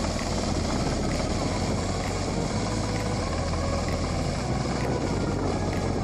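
Engine of a KC-3M crawler rotavator running steadily as the machine tills a flooded rice paddy.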